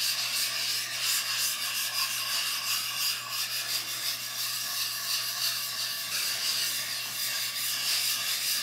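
Steel blade of a Japanese nata being stroked back and forth on a whetstone to sharpen it: a steady gritty scraping of steel on stone.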